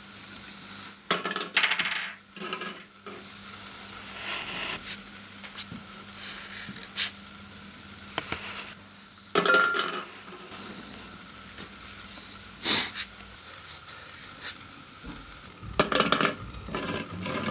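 Marker pen scratching and squeaking on a ping-pong ball in short strokes, with light plastic clicks as the ball is handled. Near the end, a quick run of clicks as ping-pong balls clatter together in a glass bowl.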